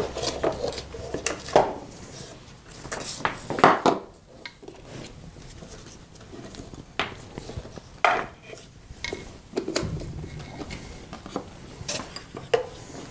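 Scattered knocks, clicks and rattles of an antique violet ray's handpiece and cord being handled and lifted out of its wooden case.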